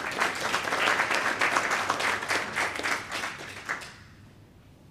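Audience clapping, a room of hands applauding that dies away about four seconds in.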